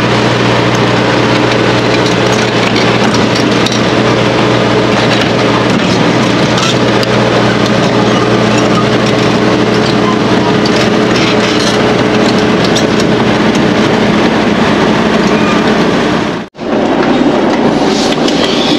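Diesel engine of a tracked mobile screening plant running steadily as the machine crawls on its tracks, with faint clatter over it. The sound drops out for a moment near the end.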